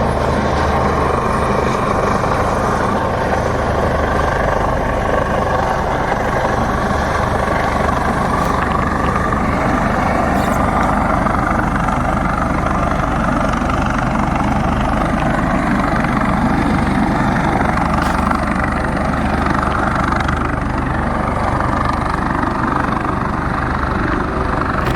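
Coast Guard rescue helicopter hovering, its rotors and engines running in a loud, steady din.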